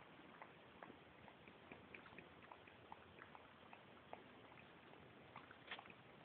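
Near silence with faint, irregular small clicks and ticks scattered through it; no sneeze is heard.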